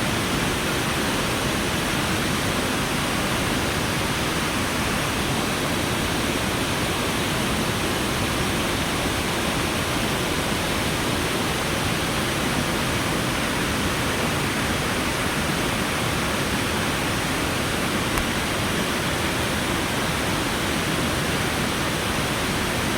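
Steady, even rushing noise, unchanging throughout, with no distinct events.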